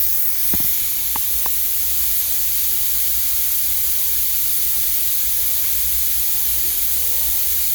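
Steady hiss throughout, with three small clicks in the first second and a half as the mill fixture's tabs are handled and the Allen key is fitted to lock them down.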